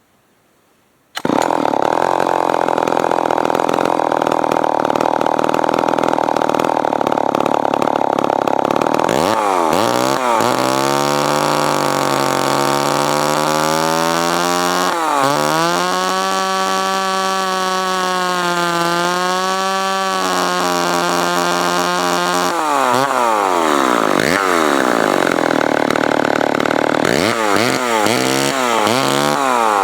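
Remington SL9 two-stroke chainsaw engine running, cutting in abruptly about a second in at high speed. From about a third of the way through, its speed repeatedly drops and climbs back as the throttle is worked, with a few steady stretches in between.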